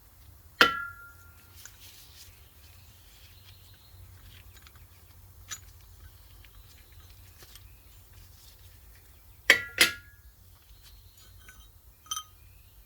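Sharp metal clinks with a brief ring, like a steel tool knocking against metal: one about half a second in, two in quick succession near the end, and a lighter one just after.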